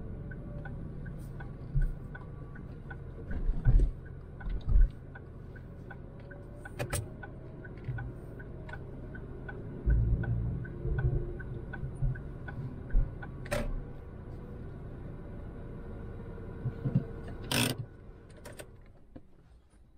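2006 Ford Focus 100 bhp petrol engine running at low speed, heard from inside the cabin, with the turn-signal relay ticking steadily at about two to three clicks a second. Several dull thumps come through, and the sound falls away over the last couple of seconds.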